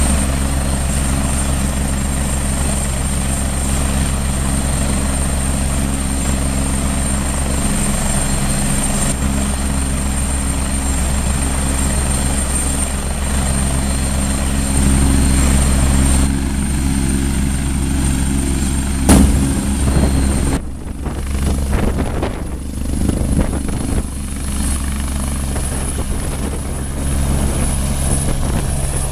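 Agusta A109 twin-turbine helicopter running on the ground with its rotor turning: a steady high turbine whine over a low, even rotor drone. A sharp click comes about nineteen seconds in. Soon after, the sound turns abruptly rougher and more uneven as the helicopter lifts off and climbs.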